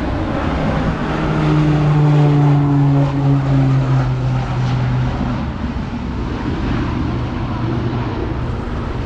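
A passing engine: a low, steady drone that falls slightly in pitch and is loudest in the first half, over a constant rushing noise.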